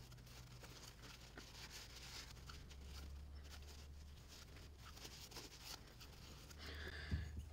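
Faint rubbing and small soft clicks of a shop rag and screwdriver working at the rim of a motorcycle brake master cylinder bore to clean off old crud, over a low steady hum.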